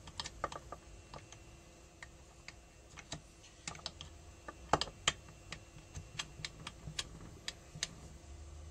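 Steel gearbox parts of an AM6 engine clicking and tapping against each other as the selector drum and a selector fork are worked into place among the gears in the crankcase: irregular sharp clicks, the loudest two close together about five seconds in.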